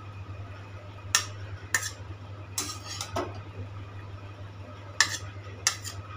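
Metal spatula scooping fried rice out of a kadhai onto a steel plate: scraping with about six sharp metal clinks against the plate and pan, over a steady low hum.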